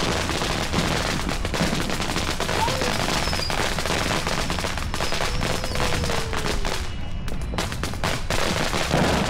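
Ground fountain firework spraying sparks with a steady hiss and rapid crackling, like a string of tiny pops. Near the end the crackles thin out into more separate pops.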